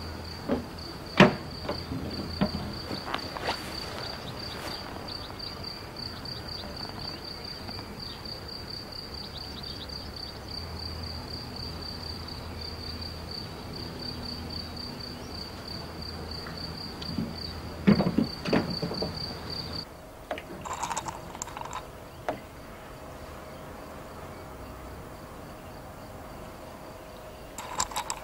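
Crickets chirping in a steady, rapid high-pitched pulse, with a sharp knock about a second in and a couple more around two-thirds of the way through as the wheelbarrow is handled. The chirping stops abruptly about two-thirds in, giving way to a low steady hum and a few light clinks of china near the end.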